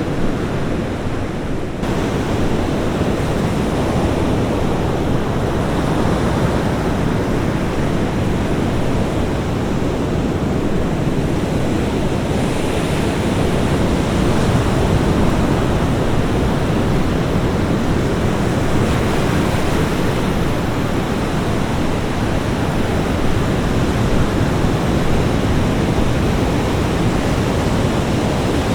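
Ocean surf washing onto a beach: a continuous rushing noise that brightens slightly about two seconds in.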